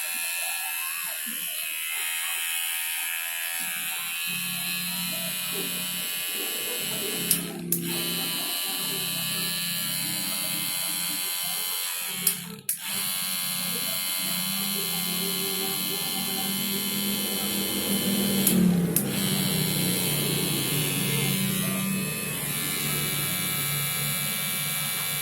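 Small DC motor of an electric hair clipper running steadily with a high whine, broken by a few short clicks.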